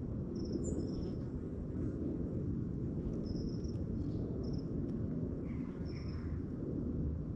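Outdoor background with a steady low rumble and a few short, thin, high chirps from small birds calling, repeated several times.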